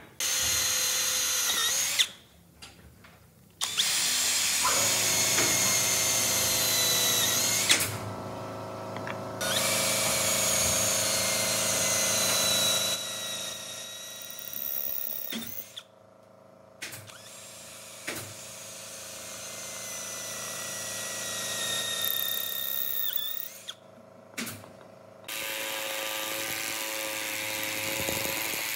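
Electric power tool working wood, running in several separate bursts with abrupt stops between them. Its high whine slides down in pitch at times as the motor takes load.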